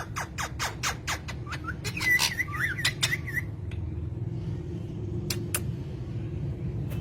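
Parrots calling: a quick run of short sharp chirps, about five a second, with a wavering squeaky warble in the middle, then two more chirps a couple of seconds later. A steady low hum runs underneath.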